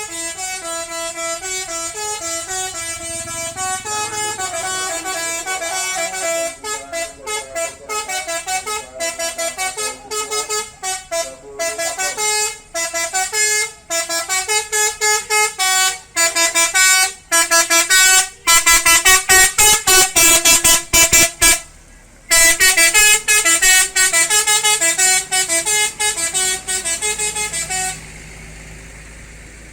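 Bus 'telolet' multi-tone air horn playing a melody of quickly changing notes, which turns into rapid staccato toots in the middle, pauses briefly about two-thirds of the way through, then resumes. The horn stops shortly before the end, leaving a lower steady rumble.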